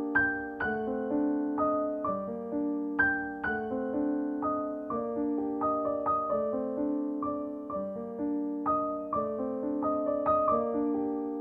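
Background piano music: a gentle melody of single struck notes, each fading after it is played, over held lower notes.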